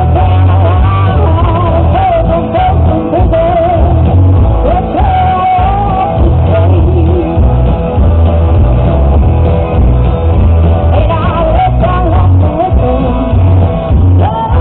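Rock music with a singer, guitar and a heavy bass beat, playing loudly throughout.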